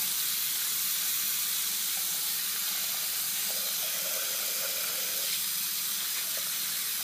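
Hot water running steadily from a kitchen or bathroom sink faucet into a closed sink basin, filling it for a soak with OxyClean stain remover.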